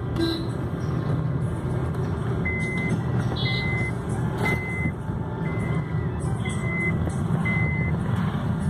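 Car driving, heard from inside the cabin: a steady rumble of engine and road noise. About two and a half seconds in, a series of six short, high electronic beeps starts, roughly one a second.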